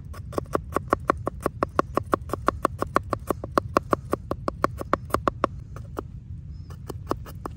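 Knife chopping an onion: rapid, even strikes about seven a second, pausing briefly near the end before starting again.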